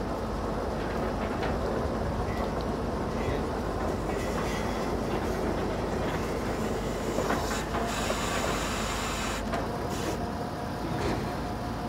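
Truck-mounted borewell drilling rig running steadily while drilling, its engine and rotating drill rod making a dense mechanical noise. A few metallic knocks and clatters come in the second half.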